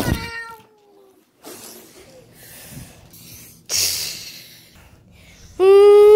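A child making mouth sound effects: a sliding-down vocal tone cut off by a sharp knock at the start, hissing whooshes in the middle, and a long, steady, high-pitched hum starting about five and a half seconds in.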